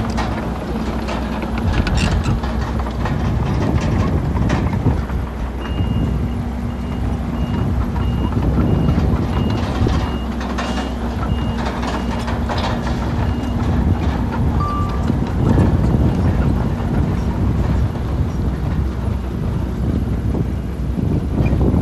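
Diesel engines of a bulldozer and dump trucks running under load, with scattered clanks. Through the middle a reversing alarm beeps steadily, about one and a half beeps a second, for several seconds.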